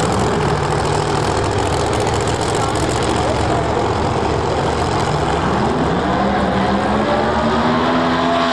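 Drag race car engines running loudly at idle; about five and a half seconds in, one engine rises in revs and holds high as a red first-generation Camaro drag car does its burnout with the rear tyres spinning.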